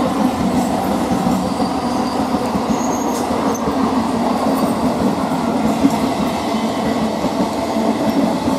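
Suburban electric multiple-unit (EMU) local train passing at speed on the adjacent track: the steady running noise of its coach wheels on the rails.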